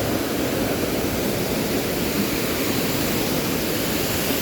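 Waterfall water rushing, a steady, even roar without breaks.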